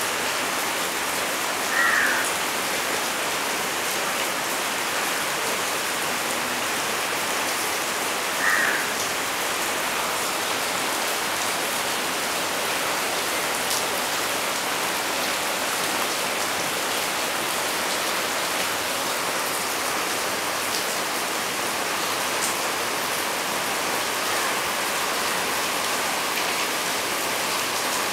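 Steady rain falling on palm fronds and foliage: a continuous, even hiss of many drops. Two brief, slightly louder sounds stand out above it, about two seconds in and again about six seconds later.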